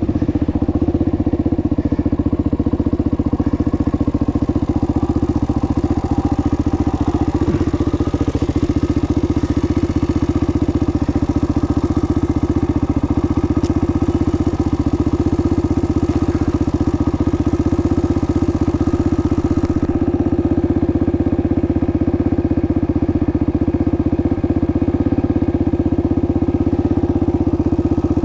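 A vehicle engine running steadily at constant revs, loud and close, with no revving.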